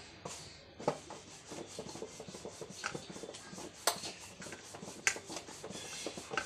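Rice-flour dough pressed and rolled out with a rolling pin on a flour-dusted steel plate: dry rubbing and scraping, with a few sharp clicks of the pin against the plate.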